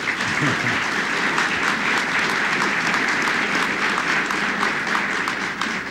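An audience of many people applauding: a dense, even patter of hand claps that thins out near the end.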